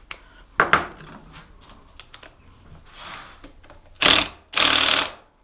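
Hand tools and small metal motorcycle brake parts clicking and clattering, with one sharp click about half a second in. Near the end come two short, loud hissing bursts.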